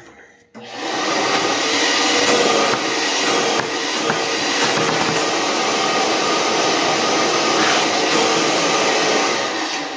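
Steady rush of air lasting about nine seconds as metal shavings are cleared from the chainsaw crankcase's seal bore after the old crankshaft seal has been pried out.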